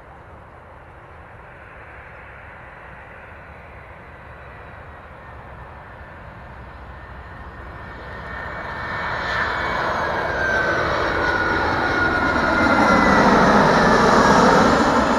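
easyJet Airbus A320-family twin-jet airliner on landing approach with gear down, its engines growing steadily louder as it comes in low overhead. A high whine falls in pitch as it passes, over a broad rumble.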